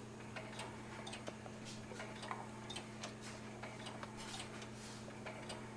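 Faint, uneven light clicking, two or three clicks a second, over a low steady hum.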